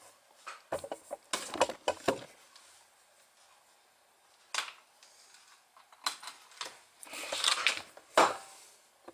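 Handling noise as a camera and cables are moved about: a run of light clicks and knocks in the first two seconds, a single click about halfway, then a rustle that ends in a sharp knock near the end.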